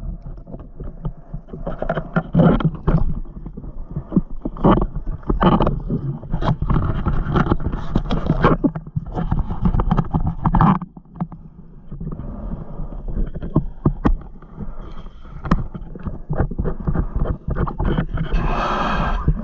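Water splashing and sloshing around a camera held at the waterline, with irregular knocks and gurgles. Near the end comes a brief rushing hiss.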